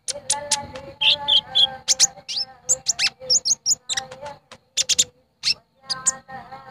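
Brown-throated sunbird (kolibri ninja, 'konin') calling: a rapid run of sharp, high chirps and quick sliding whistled notes, the kind of call used as a lure to set off other konin.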